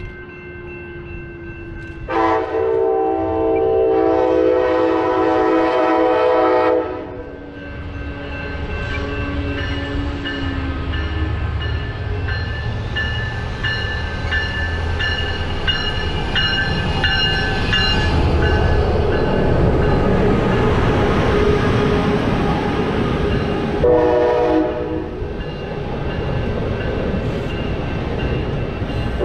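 Amtrak passenger train led by a Siemens SC-44 Charger diesel-electric locomotive sounding its horn: a long blast of about four seconds, then a short blast near the end, with another just starting. Between blasts the locomotive and Superliner bilevel cars rumble louder as they approach and roll past on the rails.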